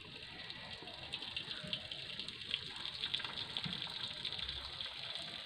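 Starchy water from boiled rice pouring steadily out of a cooking pot, past its held-down lid, into a metal basin: an even splashing stream as the rice is drained.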